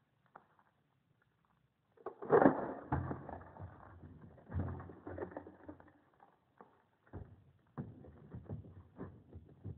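A homemade mousetrap chain-reaction device running: after a moment of quiet, a loud knock with a low rumble about two seconds in, then scattered knocks, clicks and clatters as the tennis ball, mousetrap and a row of CDs set each other off.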